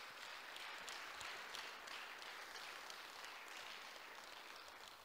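Audience applauding faintly, the clapping dying away near the end.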